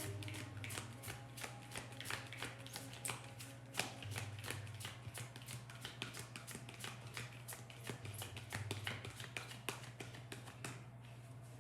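A deck of cards being shuffled by hand: a fast, continuous run of light clicks and flicks that stops for about a second near the end, over a steady low hum.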